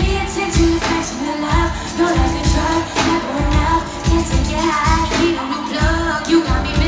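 Live R&B song played loud through a concert PA: a woman singing into a microphone over a beat with heavy bass hits.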